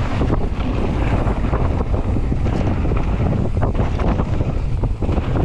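Wind buffeting the microphone of a camera riding on a mountain bike moving at speed down a dirt trail, with the tyres rumbling over the ground and frequent small clicks and knocks from the bike over rough spots.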